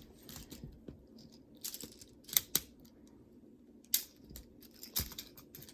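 Magnetic building toy pieces being handled and snapped together: a handful of sharp clicks spread through, with light rattling and rustling in between.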